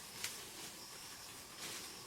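Faint forest ambience: a steady high-pitched insect drone, with two short soft rustles, one just after the start and one near the end.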